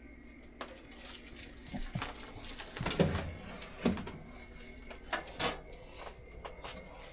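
Metal oven parts clanking and knocking as they are handled, about half a dozen separate knocks with quiet between them.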